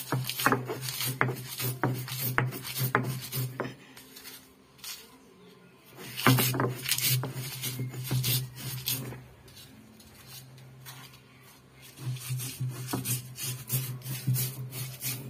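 Ammikkallu grinding stone being worked: the cylindrical stone rolled and rubbed back and forth over dried red chillies and salt on the flat stone slab, a gritty stone-on-stone scraping with a low rumble, crushing the chillies. It comes in three spells of quick strokes, with short pauses about four and ten seconds in.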